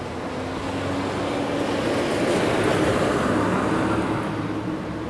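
Street traffic: a motor vehicle passing close by, its engine and tyre noise swelling to a peak about three seconds in and then fading.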